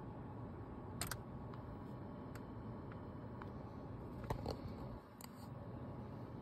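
A few short sharp clicks, one about a second in and a cluster between four and five seconds in, over a steady low hum: dashboard controls being pressed in a Toyota RAV4's cabin while resetting the oil-life reminder.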